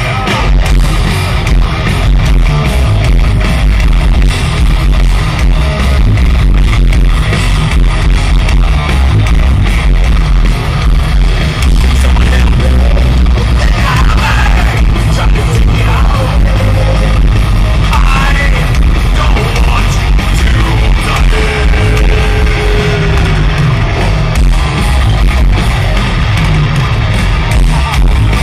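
Heavy metal band playing live at full volume: electric guitars, bass and drums with no break, heard from within the crowd.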